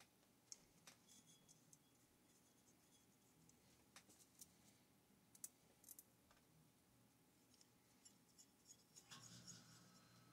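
Near silence, with faint scattered clicks and light scraping of small parts being handled and fitted onto a chainsaw engine on a workbench. A low steady hum comes in near the end.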